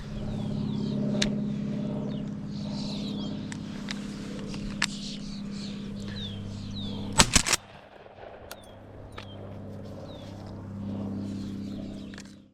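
A low, steady engine-like hum runs under many small birds chirping in short, falling calls. A little after seven seconds comes a loud, brief clatter of several sharp knocks. The hum then drops away and returns near the end.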